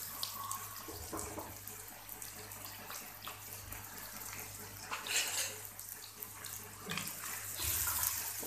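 Chopped onions sizzling in hot oil in a metal wok, frying toward light brown, over a steady low hum. Near the end a spatula starts stirring them, scraping through the pan.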